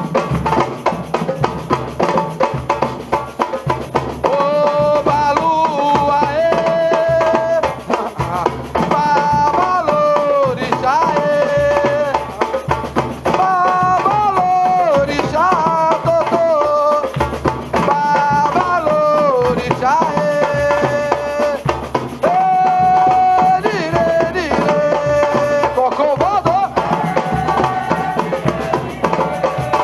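Music: a melody with sliding notes over a busy drum and percussion groove, the melody coming in about four seconds in.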